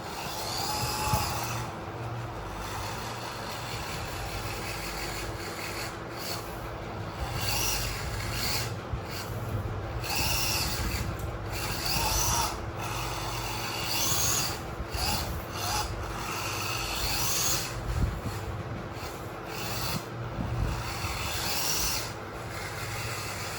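Small RC vehicles working in dirt: scraping and rubbing of dirt and gravel, with the faint whir of small electric motors, going unevenly louder and softer.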